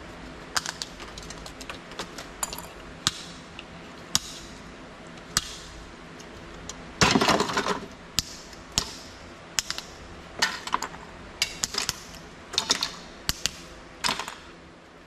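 Scrap computer parts being handled and sorted by hand: irregular sharp clicks and clacks of small metal and plastic pieces, with a louder rattling clatter about seven seconds in.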